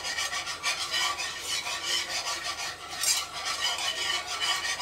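A utensil stirring and scraping around a speckled granite-coated non-stick pan of white sauce, milk being worked into a butter-and-flour roux. The strokes are quick and continuous.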